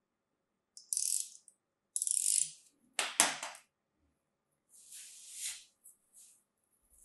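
Compacted kinetic sand being sliced with a craft knife and crumbled by hand. There are gritty, hissing scrapes twice in the first few seconds, then a sharp crunch about three seconds in, the loudest sound, and softer crumbling hisses near the end.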